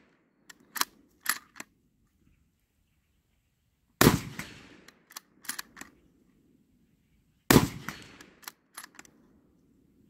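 Two rifle shots from a short-barrelled Black Creek Labs Bison in .223 Remington, about three and a half seconds apart, each trailing off in an echo. Between shots come a few sharp clicks of the rifle's action being worked.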